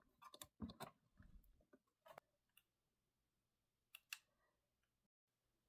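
Near silence with a few faint clicks, ending in two quick clicks about four seconds in as the buttons of a digital PID temperature controller are pressed. A faint low hum sits underneath.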